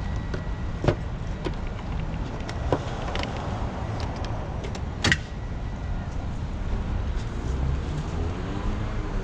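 A few sharp clicks and knocks of test leads and clamps being handled, the loudest about five seconds in, over a steady low rumble.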